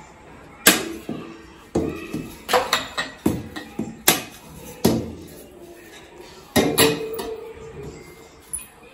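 Metal poles and a wire shelf of a wire-shelving rack clanking and clicking together as they are fitted: about a dozen sharp knocks, some ringing briefly.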